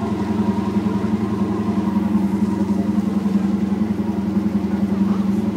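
Cruise boat's engines running with a steady, even drone.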